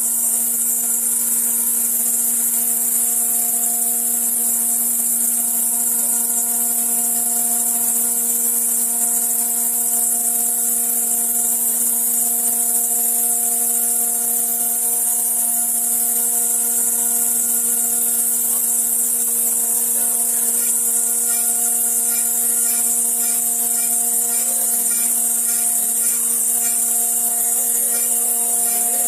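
1325 CNC stone router spindle cutting a groove into granite, a steady whine under a constant high hiss of the bit grinding the stone.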